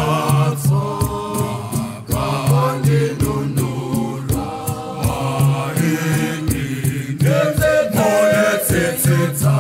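Choir singing a Shona hymn of thanksgiving in harmony, the voices moving together phrase by phrase over a held low note.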